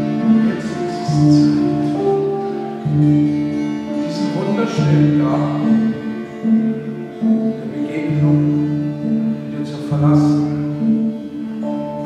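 Live meditative sound-journey music: a Hang (handpan) rings out slow, overlapping notes about a second apart over a sustained drone, with a few brief bright higher strikes.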